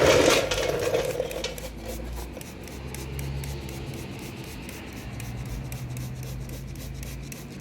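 Hand trigger spray bottle pumped over and over, spritzing soapy water onto a tire's tread in a leak check: a quick run of short sprays, with a low hum underneath.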